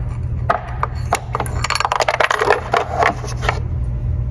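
Rapid clicks, clinks and scrapes of hand tools and spark plugs being handled over a steady low hum, thinning out near the end.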